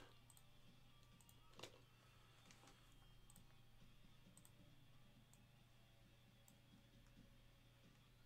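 Near silence with faint, scattered clicks of a computer mouse and keyboard, about one every second, over a faint steady low hum.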